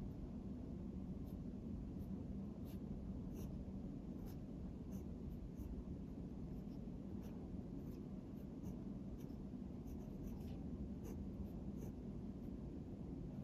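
Gel pen writing Japanese characters on a paper worksheet: faint scratching of the tip, with short ticks as separate strokes are made, over a steady low hum.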